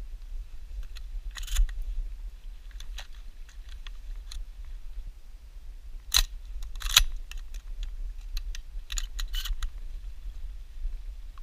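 Scattered clicks and light taps close to the microphone, with two sharper knocks about six and seven seconds in, over a steady low rumble.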